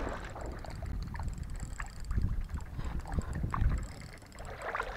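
Wind buffeting the microphone in gusts, loudest about two and again three and a half seconds in, over light water sounds at the shoreline.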